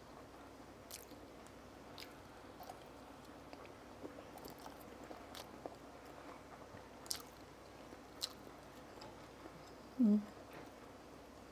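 A person quietly chewing a mouthful of fried egg and tofu, with a few faint clicks. There is a short hum about ten seconds in.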